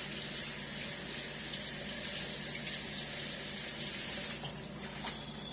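Butter sizzling in a pan on high heat, a steady high hiss that dies away about four and a half seconds in.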